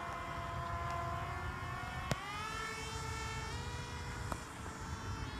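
Small electric motor and pusher propeller of a foam RC jet whining in flight. The pitch sags slightly, then rises after a click about two seconds in, as the motor speeds up. A low rumble runs underneath.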